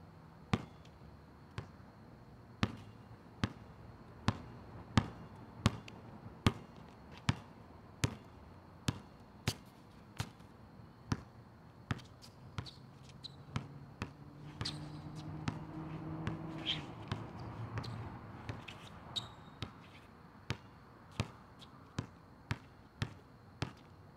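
A basketball dribbled on an asphalt court: sharp, steady bounces, a little over one a second. A low hum swells in the background for a few seconds midway.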